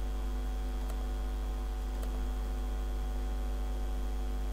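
Steady electrical mains hum in the recording, with two faint mouse clicks about a second and two seconds in as menus are opened.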